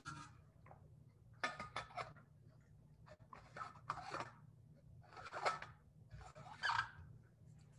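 Faint, short noises from a person at a desk close to the microphone, coming in about five brief clusters a second or so apart, over a steady low hum.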